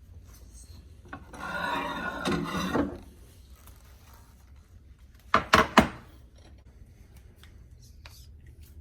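Kitchen dish handling: a scraping, rubbing sound lasting about two seconds, then three sharp knocks in quick succession a few seconds later.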